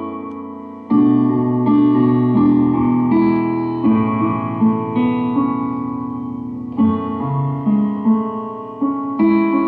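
Instrumental interlude with no singing: ringing chords and melody notes that are struck and fade, a ballad-like accompaniment. A chord fades out at the start, and a louder phrase comes in about a second in.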